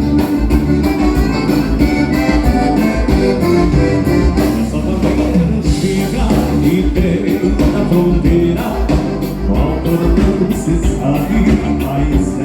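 Live band playing a bugio, the gaúcho dance rhythm, with a steady beat.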